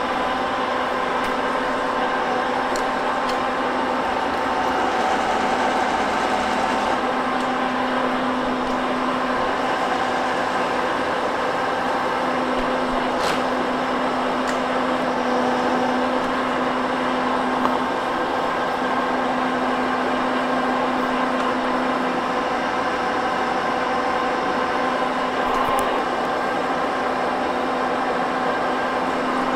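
Cincinnati 2ML horizontal milling machine running its spindle at a steady speed, a constant pitched hum, while it spins an edge finder in a half-inch collet to locate the edge of the shaft.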